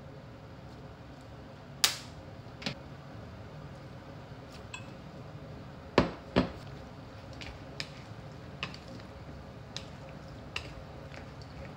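Sharp plastic clacks as condiment bottles are handled and set down on a kitchen counter, the loudest about two seconds in and a pair around six seconds, then lighter clicks every second or so as a spatula stirs macaroni salad in a plastic bowl, over a steady low hum.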